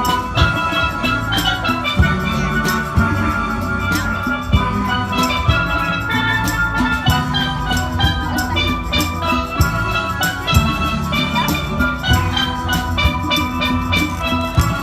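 Steel band playing: steel pans ringing out a melody over a steady drum beat.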